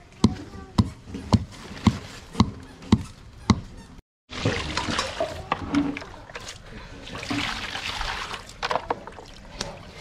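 Sharp knocks repeating about twice a second, then, after a cut, water splashing and sloshing in a plastic tub as whole plucked chickens are washed in it.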